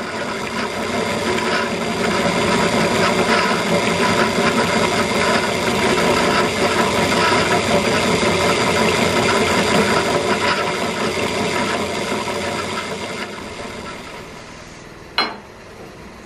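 Drill press spinning a hole saw that cuts a notch into the end of a metal pipe: a steady machine whine with a rattling, grinding cut. About three-quarters of the way in it winds down and fades, and a single sharp click follows near the end.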